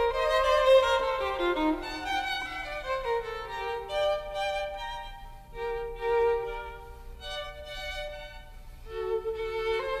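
Background music: a violin playing a slow melody of held notes.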